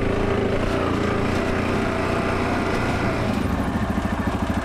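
ATV engine running while riding, its steady hum changing about three seconds in to a slower, evenly pulsing beat as it comes down to idle.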